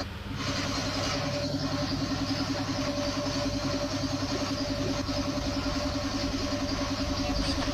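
A steady machine hum with a fast, even pulse, about ten beats a second, over a hiss.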